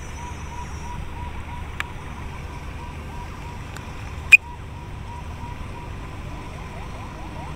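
A single sharp click about four seconds in, as the drone remote controller's flight-mode switch is flipped into Sport mode, over a steady low rumble with a faint chirp repeating a few times a second.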